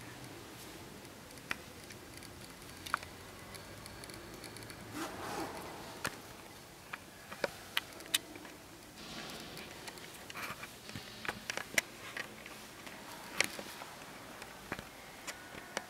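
Faint room tone in a quiet, echoing church, broken by scattered sharp clicks and taps at irregular intervals, more frequent in the second half, with a brief soft noise about five seconds in.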